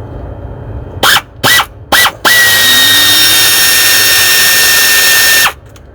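Handheld power tool worked on the van's engine: three short trigger blips, each a rising motor whine, then one run of about three seconds with a steady high whine before it stops.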